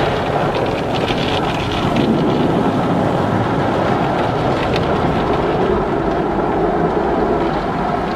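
Automatic car wash running: a steady loud rush of spraying water and machinery, with a few scattered clicks and knocks.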